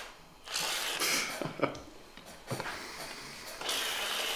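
Aerosol whipped-cream can spraying in hissing bursts, the longest near the end, with a few light knocks between them.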